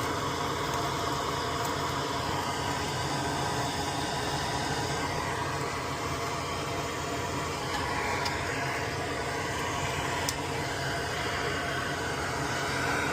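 Steady mechanical hum with hiss, as from a fan or motor running in the room, with a single sharp click about ten seconds in.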